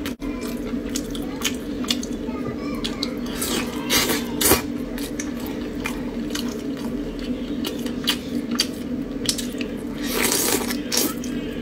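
Close-up wet eating sounds: braised chicken drumsticks handled in their sauce, squishing and dripping in many short clicks, with a louder stretch of biting into a drumstick about ten seconds in. A steady low hum runs underneath.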